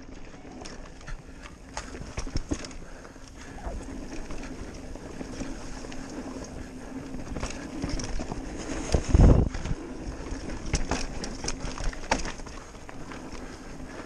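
Mountain bike riding fast down a dirt trail: tyres rumbling over the ground, with the chain and frame rattling and knocking over the bumps. A heavy thump stands out about nine seconds in.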